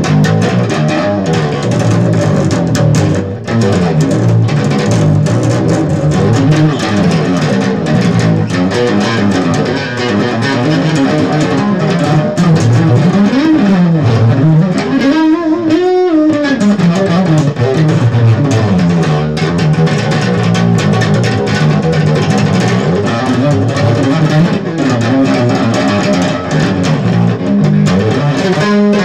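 Electric bass guitar played solo, fingerstyle: fast runs of plucked notes, with a quick sweep up to higher notes and back down about halfway through.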